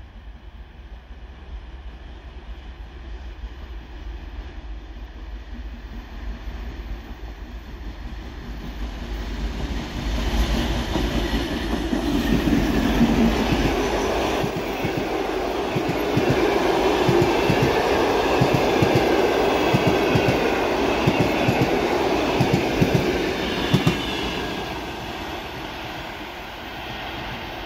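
Passenger train hauled by a TEP70BS diesel-electric locomotive approaching and passing at speed: a rumble that grows louder for about ten seconds, then the carriages' wheels clacking in a rapid rhythm over the rail joints, easing off as the train moves away.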